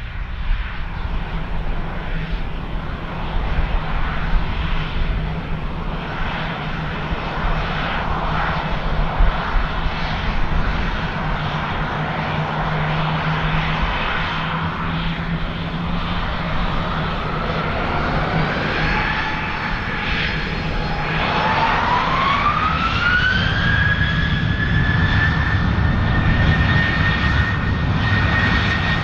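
Twin CFM56-7B24 turbofans of a Boeing 737-800 running at low thrust, then spooling up for takeoff. The engine whine climbs steeply about three-quarters of the way through and then holds high over a steady low rumble.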